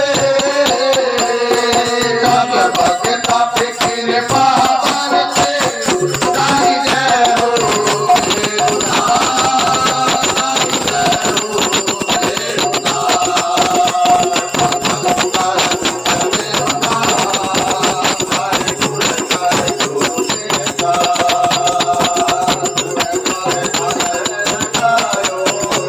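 Indian devotional bhajan music: a melody on held notes over fast, continuous jingling, rattling percussion.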